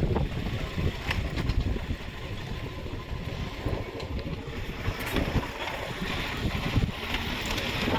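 Motorcycle riding over a rough, broken dirt road, with engine and road rumble, irregular knocks from the bumps, and wind buffeting the microphone.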